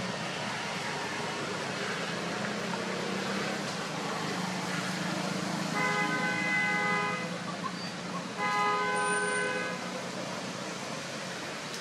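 A vehicle horn honks twice, two long flat toots about a second apart near the middle, over a steady low hum of traffic.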